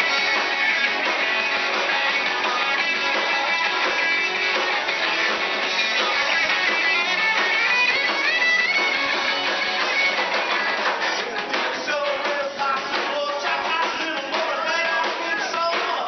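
Live rock band playing, with electric guitar and drums. The sound is loud and dense, turning a little sparser and quieter, with the drum hits standing out, in the last few seconds.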